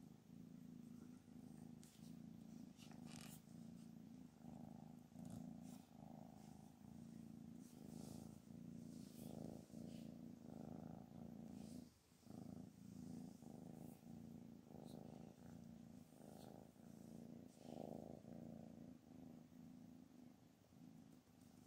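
A cat purring close to the microphone while it is stroked, a steady low purr that swells and fades about three times every two seconds with its breathing. It breaks off briefly about twelve seconds in.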